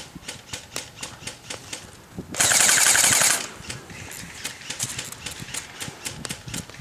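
Airsoft rifle firing one rapid full-auto burst of about a second, a couple of seconds in, close by.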